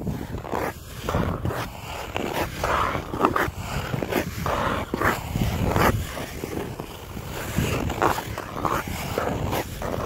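Ice skates on frozen pond ice: a continuous run of irregular scraping strides and short knocks, several each second.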